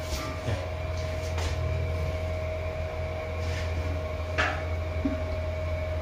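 Passenger lift car descending: a steady low hum and a thin steady whine from the lift machinery, with a couple of light knocks in the car.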